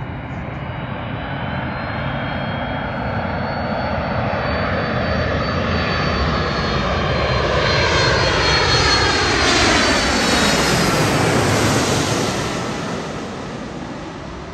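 FedEx Boeing 767-300F freighter's twin GE CF6 turbofan engines on landing approach, passing low overhead. The engine noise builds to its loudest about ten seconds in, with a high whine and tones sweeping downward in pitch as it goes over, then fades as the aircraft moves away.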